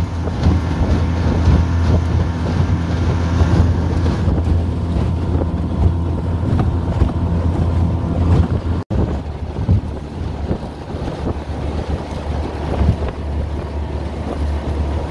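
A small fishing boat's outboard motor running under way, a steady low drone, with wind buffeting the microphone and water rushing past the hull. It cuts out for an instant about nine seconds in, then carries on a little quieter.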